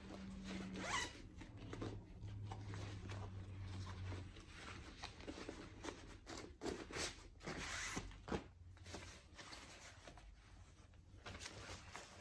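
Nylon rain poncho and its plastic packaging rustling and rasping in short zip-like strokes as the tightly packed poncho is worked out by hand. A faint low hum runs under the first four seconds.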